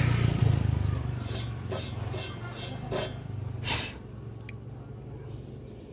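Metalwork at a welding bench: a short burst of harsh noise over a low steady hum, then six quick scraping strokes on metal, about two a second.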